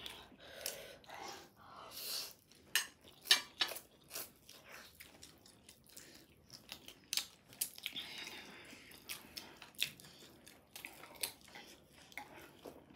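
Close-up eating sounds of spicy chicken wings and Buldak noodles: chewing and biting, with irregular sharp clicks and taps of tableware. The loudest click comes about three seconds in.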